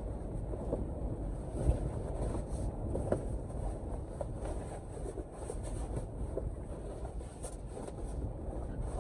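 Strong blizzard wind blowing in a steady low rumble, with a few faint clicks scattered through it.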